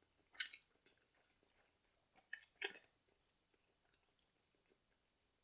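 Someone eating spicy instant noodles close to the microphone: two short, sharp bursts of eating noise about two seconds apart, with faint mouth sounds between.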